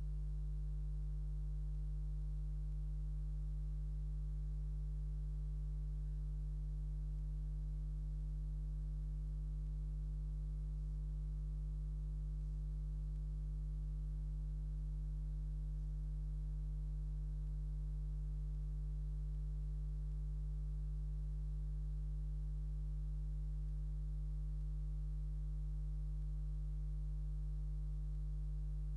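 Steady low electrical hum, a mains-frequency drone with a stack of fainter buzzy overtones above it, unchanging in pitch and level.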